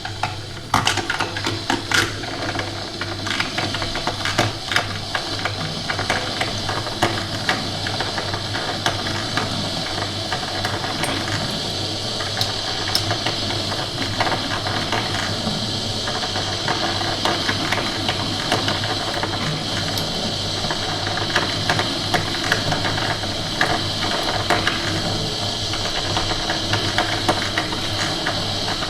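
Coffee machine running: a steady low hum under a hiss and dense, irregular clicking and rattling, which start about a second in, loudest at first.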